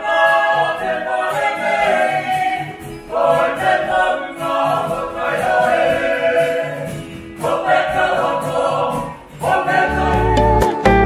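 Group of Māori performers singing together in harmony, in phrases a few seconds long with short breaks, with guitar accompaniment. Near the end, different music with a deep steady beat comes in.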